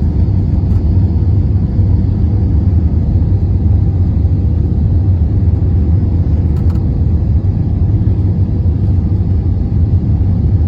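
Steady low rumble of a moving vehicle heard from inside, with a faint hum above it and no change in pitch.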